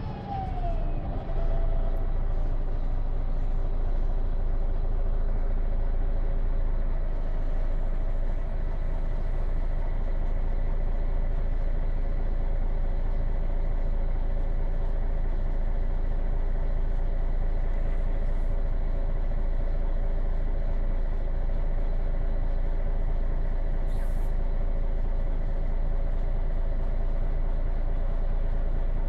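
MAN NG313 bus's MAN D2866 LUH24 straight-six diesel with Voith automatic gearbox. Its pitch falls as the bus slows to a stop in the first second or two, then the engine idles steadily while the bus stands. A short hiss of air comes about 24 seconds in.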